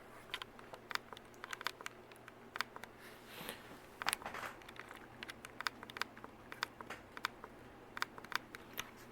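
Ceiling fan running with a faint steady hum, with irregular light clicks and crackles scattered over it.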